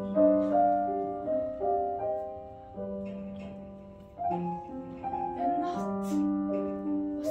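Piano playing a melody of held notes, each ringing and fading after it is struck; a new phrase starts about four seconds in.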